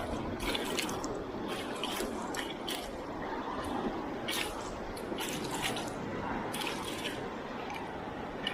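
Shallow Baltic seawater splashing and dripping, with short sharp splashes several times a second over a steady wash of water.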